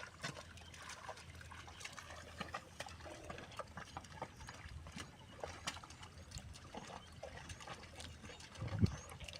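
Faint splashing and trickling water with scattered small clicks and knocks, and a brief low thud near the end.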